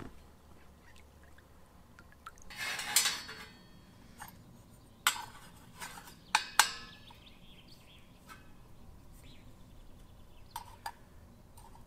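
Sharp metallic clinks as a small brass spirit burner is set into a perforated metal folding stove and its lid is handled, after a short rustling scrape about two and a half seconds in.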